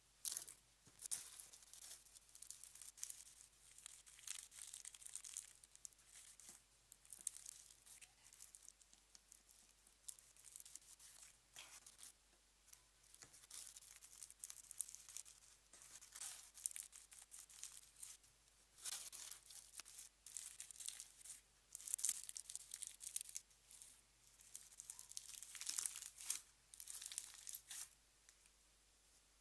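Slime being stretched, pulled apart and squeezed by hand, giving irregular crackly, tearing bursts with short pauses between them.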